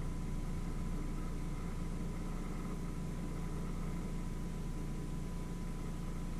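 Steady low hum of a running appliance, with a faint high tone held throughout.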